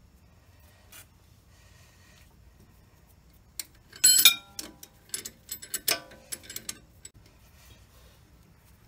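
Steel parts of a brake caliper piston wind-back tool clinking against each other and the caliper as it is handled and fitted. There is a burst of sharp metallic clinks with brief ringing, loudest just after the middle, lasting about three seconds.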